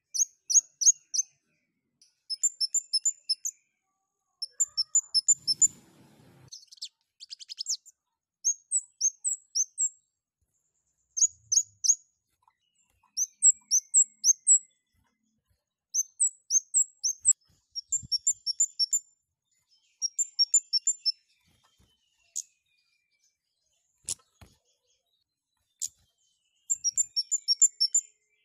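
Scarlet-headed flowerpecker (kemade) calling hard in breeding condition: very high, sharp chirps in quick runs of three to six notes, repeated every second or two. A few sharp clicks come between the runs.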